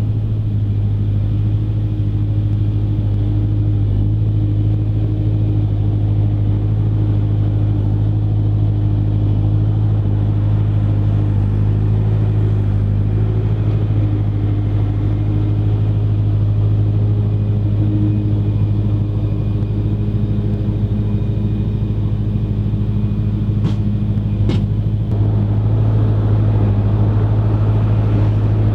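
Massey Ferguson 6470 tractor running steadily at a constant engine speed while pulling a Fendt big baler, a loud even drone. Two short sharp clicks sound close together about three quarters of the way through.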